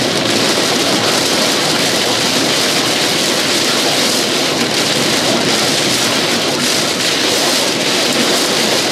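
Heavy rain pelting a moving vehicle, heard from inside the cab: a loud, steady hiss of rain on the windshield and body over the road noise, the downpour of a tornado's rain wrap.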